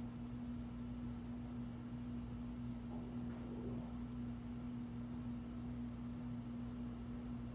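Dayton (Marley) Leading Edge 48-inch commercial ceiling fan running, its motor giving a steady, even hum. Its bearings are still good.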